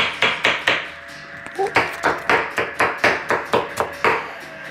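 Chef's knife chopping pineapple on a wooden cutting board, steady knocks about three a second. The chopping stops for about a second after the first few strokes, then resumes at the same pace.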